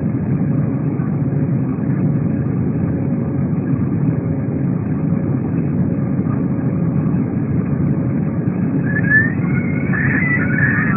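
Steady cabin noise of an Airbus A320 climbing out: a low, even rumble of engines and airflow with a faint constant hum. A few brief high wavering sounds come in near the end.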